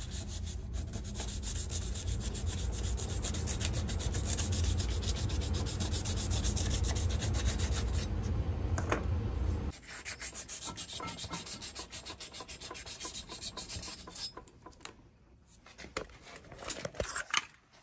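1000-grit sandpaper, wrapped on a file, rubbing back and forth inside the metal exhaust port of a two-stroke engine cylinder, smoothing the port walls before polishing. Fast, continuous strokes, heavier for about the first ten seconds, then lighter, stopping about fourteen seconds in, followed by a few light handling sounds.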